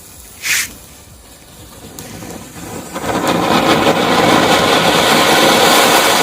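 A short sharp hiss, then a lit firework gushing: a loud, crackling hiss that builds over about a second and then holds steady.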